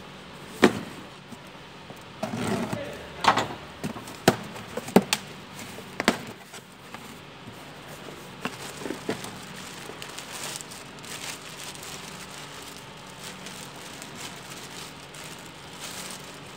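A cardboard box being handled and opened, with several sharp knocks in the first six seconds, then plastic packaging rustling and crinkling as it is handled.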